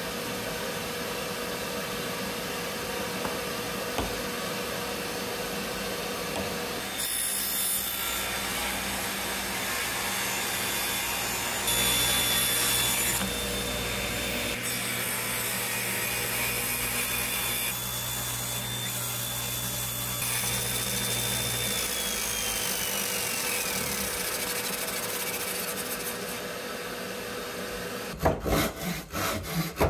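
A power tool working wood, with a steady hum and noise that shift a few times as the cut goes on. A high whine falls in pitch past the middle. Near the end come quick, irregular scraping strokes.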